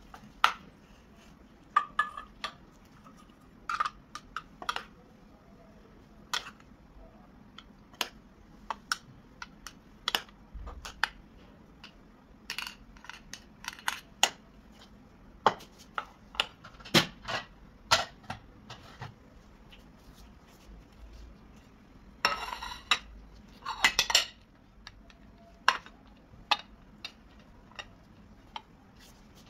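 Kitchen utensils clinking and knocking against dishes and pots in scattered sharp strikes, with two short rattling clatters about three quarters of the way through.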